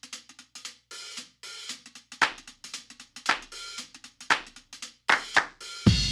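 Drum kit playing the intro of a funk song: quick hi-hat and cymbal ticks, then louder snare strikes about once a second. A heavy low end of kick drum comes in near the end.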